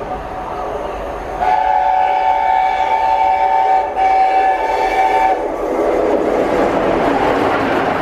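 LNER A4 Pacific steam locomotive No. 60009 sounding its chime whistle: a long multi-note blast, then after a brief break a shorter second blast. The whistle gives way to the rising rush of the train passing at speed.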